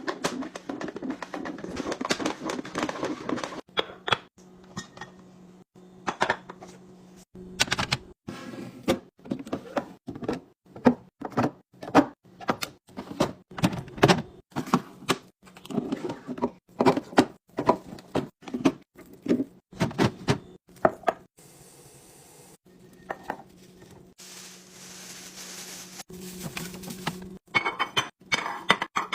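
Repeated clinks and knocks of containers, jars and dishes being picked up and set down while a refrigerator is emptied and restocked, over a steady low hum. A stretch of hissing noise comes about three-quarters of the way through.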